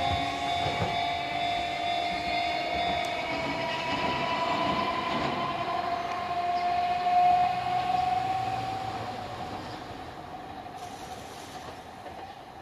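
Chikuho Electric Railway 2000-series car 2003 running away along curved track. A whine of several steady high tones sits over the rumble of the wheels on the rails. The sound fades steadily over the last few seconds as the train draws away.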